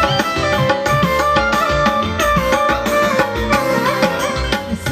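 Live electone (arranger keyboard) band music: a keyboard melody with some pitch bends over a steady drum beat.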